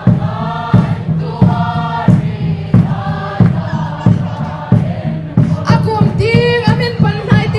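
A group of voices singing together over a steady, heavy drum beat, about one and a half beats a second.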